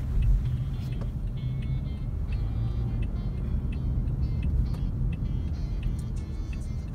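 Steady low road and engine rumble heard from inside the cabin of a moving vehicle.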